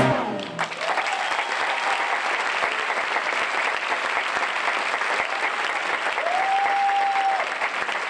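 Large theatre audience applauding steadily as the band's last chord dies away in the first half second.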